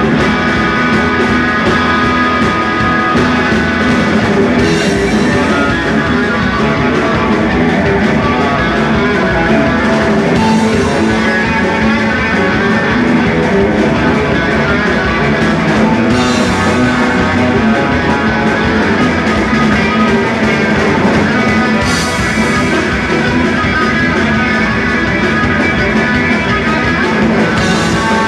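Live boogie rock band playing an instrumental passage: electric guitars, electric bass and drum kit, with a cymbal crash about every six seconds.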